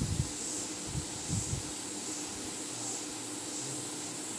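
Steady background hiss of room noise with a faint low hum, and a few soft low thumps in the first second and a half.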